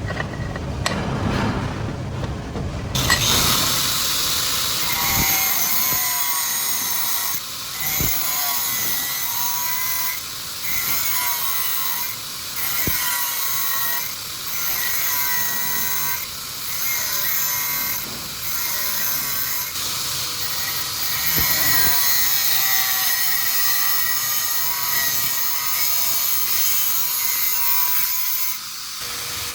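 Power tool running from about three seconds in with a high hiss and a whine whose pitch sags repeatedly, broken by brief dips about every two seconds.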